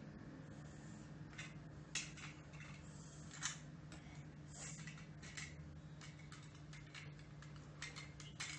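Plastic toy food and toy kitchen utensils clicking and tapping as they are handled on a table, with two sharper knocks about two and three and a half seconds in, over a steady low hum.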